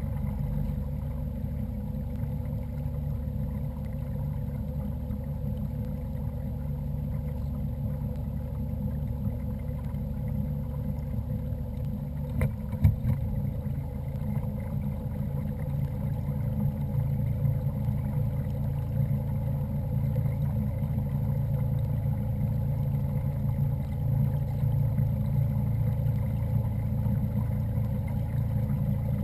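A small motor pushing a fishing kayak drones steadily, with water and hull rumble underneath. A single knock comes a little under halfway through.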